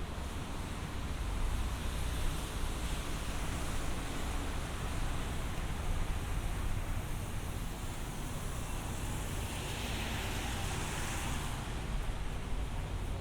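City street traffic: a steady hiss of tyres on wet pavement under the low rumble of engines, with one vehicle swelling louder as it passes about ten seconds in.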